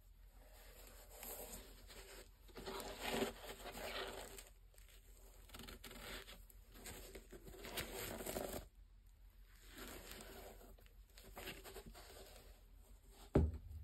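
Gloved hands handling a knit basketball sneaker: soft, intermittent rustling and rubbing against the knit upper, laces and rubber outsole. A short soft thump comes near the end.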